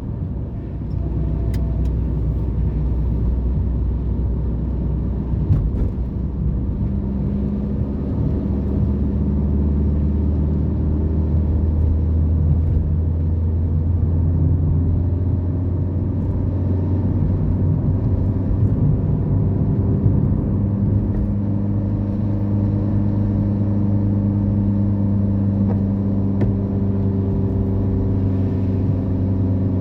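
Car engine and road noise, a steady low drone whose pitch climbs a little several seconds in and then holds.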